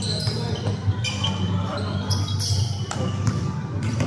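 Basketball being dribbled on a hard court, with repeated bounces, short high sneaker squeaks and players calling out.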